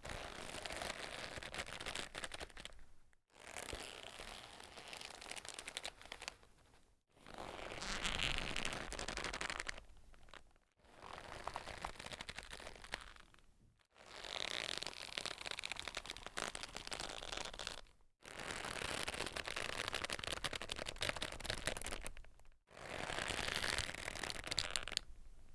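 A folded leather jacket being twisted hard in both hands, the leather creaking and rubbing against itself: the Foley stand-in for the tightening sound of a strangling. It comes in seven takes of three to four seconds each, with short pauses between them.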